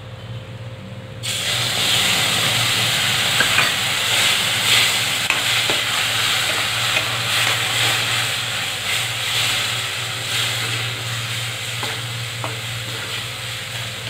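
Curd poured into hot oil, roasted gram flour and green chillies in a steel kadai, bursting into a loud sizzle about a second in and being stirred with a spatula, the sizzle slowly easing as the curd's moisture cooks off.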